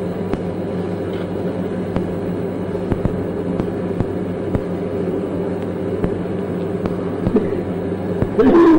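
Steady low hum and hiss of an old lecture recording's background, with a few faint clicks.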